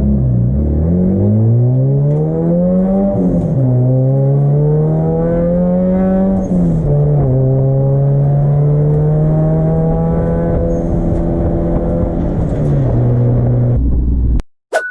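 Turbocharged Honda D16 four-cylinder in an EK Civic race car accelerating hard: the engine climbs in pitch, drops sharply at an upshift about three seconds in, climbs again and shifts once more about six and a half seconds in, then holds a steady pitch under load. Near the end the revs fall, and then the sound cuts off abruptly.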